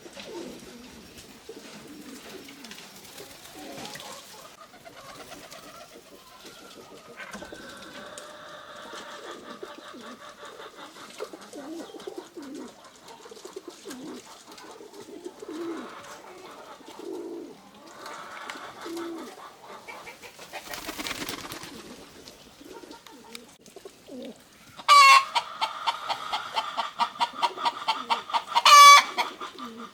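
Pigeons or doves cooing over and over in short, low calls. About five seconds before the end, a loud, drawn-out fowl call begins, and it comes again near the end.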